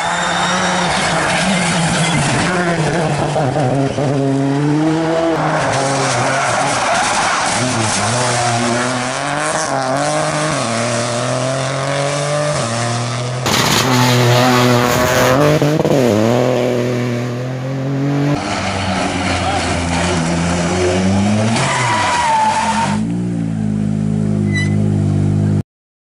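Rally cars, among them a Citroën C3 Rally2, driven hard on a tarmac test road: engines rev up and drop back through gear changes as they pass, with tyre squeal, in several successive passes. The sound cuts off abruptly near the end.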